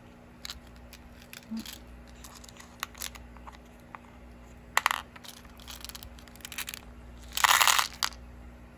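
Beads and their plastic packaging being handled: scattered light clicks and taps, then a louder crinkling rustle lasting under a second near the end.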